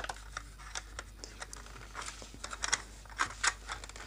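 Irregular light clicks and taps of a hard plastic speaker housing being turned over and pressed at its seam by hand.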